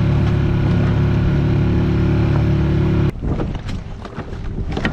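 Honda four-stroke outboard motor running steadily, pushing the small boat along under way. It cuts off abruptly about three seconds in, giving way to wind on the microphone and water splashing.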